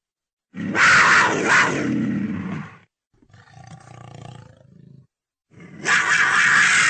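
Leopard roaring: two loud calls of about two seconds each, with a quieter call between them.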